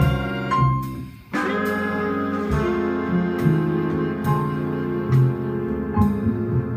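Big band jazz ensemble playing: a held chord breaks off about a second in, the band comes back in with a sharp hit, and sustained horn chords continue over a moving bass line.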